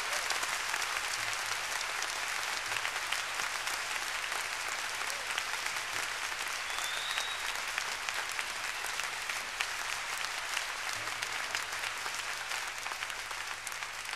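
Live concert audience applauding after the song ends: a steady wash of clapping that begins to fade near the end.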